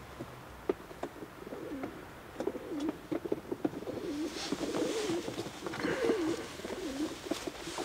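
Racing pigeons cooing: a low, warbling coo repeated about once a second, with short clicks and rustling from a pigeon being handled.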